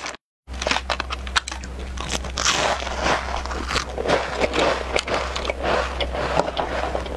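Plastic snack packaging crinkling and crackling as an egg-yolk biscuit is unwrapped from its box and clear plastic tray, with a louder rustle of the wrapper about three seconds in.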